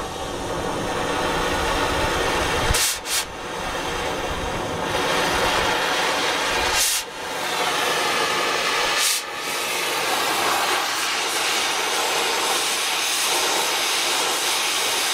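Oxy-acetylene torch hissing steadily while it heats and cuts out a broken-off bolt, with three brief breaks in the hiss about 3, 7 and 9 seconds in.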